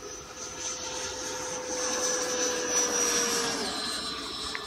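FMS BAE Hawk and Futura electric ducted-fan model jets flying by with a steady high whine that grows louder, then drops in pitch about three and a half seconds in.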